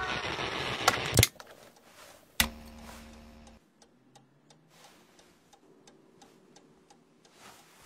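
Swing music from an old cabinet radio cuts off with a click about a second in, and a second sharp click follows. Then, in a quiet room, a clock ticks steadily.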